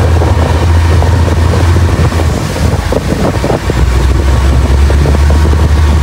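A motorboat's engine drones steadily under the rushing of its churning wake, with wind buffeting the microphone. About three and a half seconds in, the engine note drops slightly lower.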